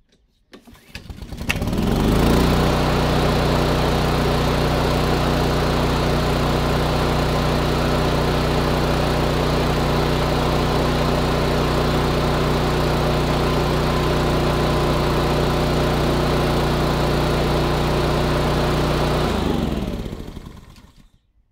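Honda GCV160 single-cylinder four-stroke engine on a Flymo XL500 hover mower, pull-started and catching at once, then running steadily at a constant speed. About nineteen seconds in it is shut off and winds down to a stop.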